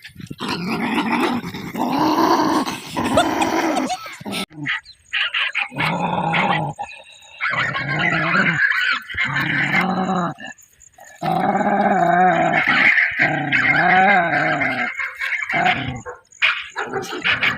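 A dog growling and barking in repeated bouts, each one to several seconds long, with short breaks between them.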